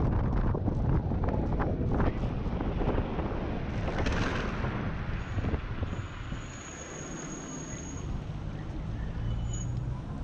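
Wind buffeting the microphone and road noise as an electric scooter rides through city traffic. A louder surge comes about four seconds in. The wind then dies down about halfway through, leaving quieter traffic noise with a faint high whine.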